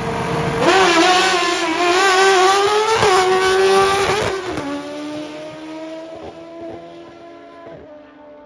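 Two drag-racing motorcycles launching side by side at full throttle. The engines get loud about a second in, their pitch climbing as they accelerate down the strip, then fade after about four and a half seconds as the bikes pull away.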